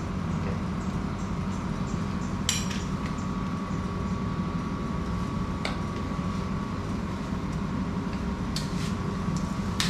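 Plastic garden-hose quick-connector and flushing-muff fittings being handled and pushed together, giving a few sharp clicks, the clearest about two and a half seconds in, over a steady background hum.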